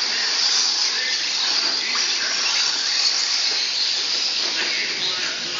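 Several radio-controlled short course trucks racing on a dirt track: a steady high-pitched whine of their motors mixed with hiss.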